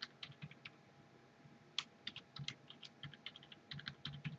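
Computer keyboard keys typed faintly in two runs of separate clicks: a short flurry at the start, then after a pause of about a second a longer run, as a password is typed and then retyped to confirm it.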